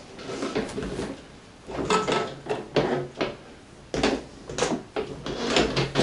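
Irregular clattering and scraping from tools and a shop-vacuum hose being handled at an oil boiler: several short bursts with quiet gaps between them, and no vacuum motor running.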